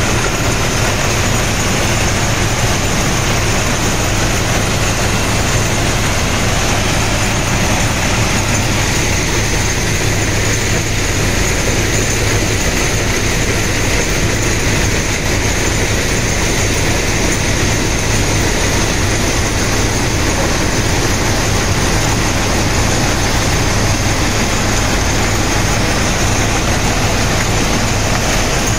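Plasser FRM-85F track formation rehabilitation machine at work: its engines and conveyors running in a steady, loud mechanical drone with a constant low hum.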